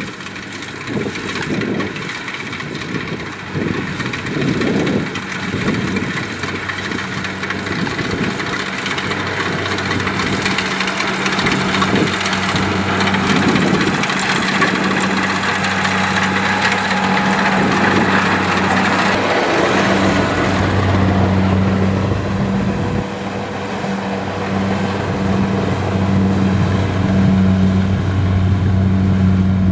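Kubota DC70 rice combine harvester working in the field: its diesel engine runs with a steady hum, with a rushing, uneven noise from the cutting and threshing over it for the first two-thirds, after which the engine hum stands out more clearly.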